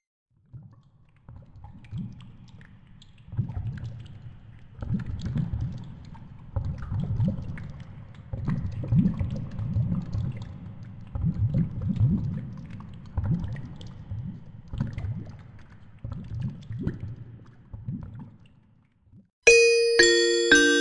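Soft, low-pitched background music that swells and fades in slow pulses. Near the end a bright chime jingle rings out.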